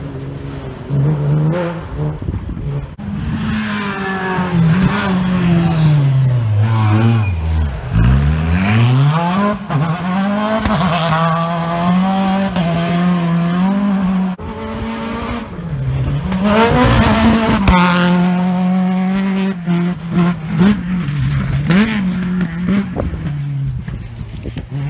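Rally car engines revving hard on dirt stage sections, one car after another. The engine note climbs and drops again and again with the gear changes; about eight seconds in, one note falls away low and then climbs again.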